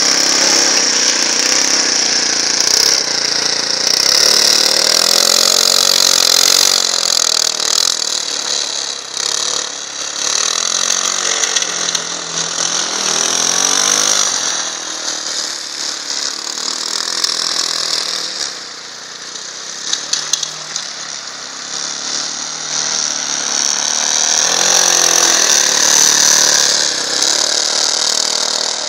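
Leshy 2x2M two-wheel-drive minibike's small engine revving up and down under changing throttle as it rides through deep snow. It drops back in loudness about two-thirds of the way through, then rises again near the end.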